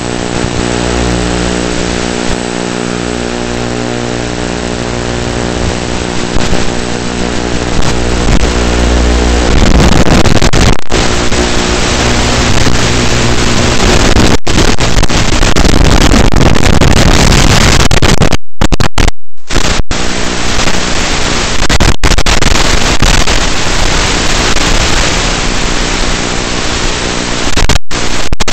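The small electric motor and propeller of a UMX Turbo Timber RC plane whine steadily through the onboard FPV camera's audio. About ten seconds in, loud hiss-like radio static from the analog video link takes over, broken by a few brief dropouts to silence.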